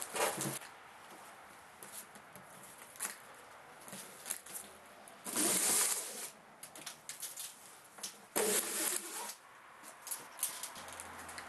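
Plastic packing straps being cut and pulled off a cardboard box, heard as three short bursts of scraping and rustling: one near the start, one about halfway through and one after about eight seconds.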